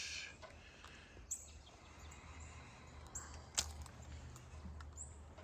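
Faint outdoor ambience with a steady low rumble, a few brief high chirps, and one sharp click a little past halfway.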